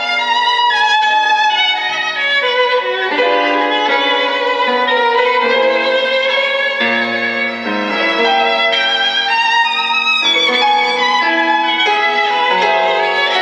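Recorded violin music, a melody of held notes with vibrato, played from CD through a single-ended amplifier with Cunningham CX-345 output tubes and a pair of small speakers.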